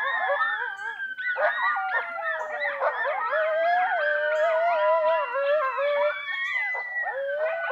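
Coyotes howling, several voices overlapping in long wavering, gliding howls, broken by bursts of short yips about a second in and again near the end.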